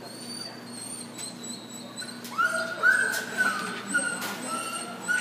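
A dog whining: a string of short, high whines that starts about two seconds in, some held level and some dropping slightly in pitch.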